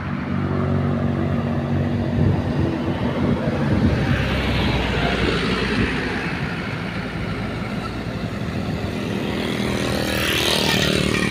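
A motor vehicle engine idling close by, with vehicles passing about four seconds in and again near the end.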